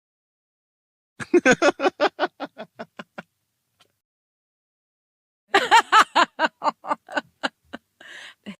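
Two bouts of laughter, each a quick run of 'ha' pulses that slows down as it goes, followed by a short breath in near the end.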